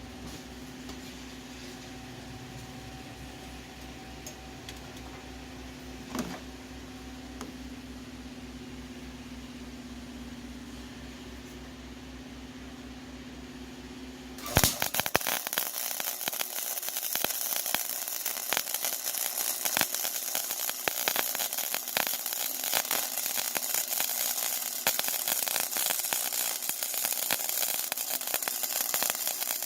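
A steady electrical hum, then about halfway through an arc welder strikes up and the arc crackles and sputters continuously in dense, irregular clicks.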